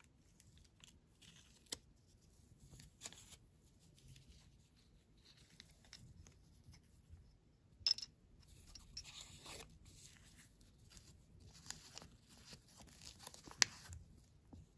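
Gloved hands handling a small plastic toy and a paper instruction slip: faint rustling and crinkling with scattered sharp clicks, the loudest about eight seconds in and near the end.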